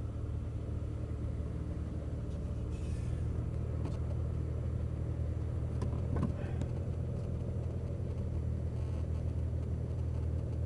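Aston Martin's engine idling with the car at a standstill, heard from inside the cabin as a steady low hum. Two faint clicks come through, about four and six seconds in.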